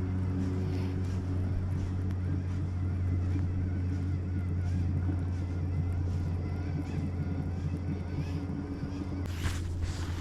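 Boat motor running steadily with a low, even hum. A brief rush of noise comes near the end.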